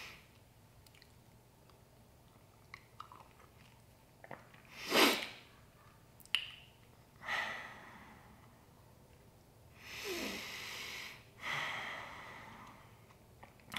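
A man breathing audibly through nose and mouth. There is a sharp sniff about five seconds in, then several long breaths in and out, with a few faint clicks before them.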